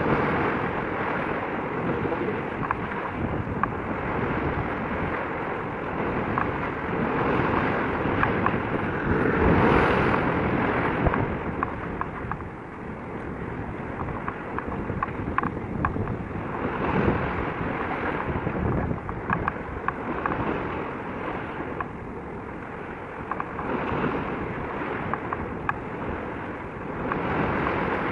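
Wind buffeting the microphone: a rushing noise that swells and eases in gusts, loudest about ten seconds in, with small crackles.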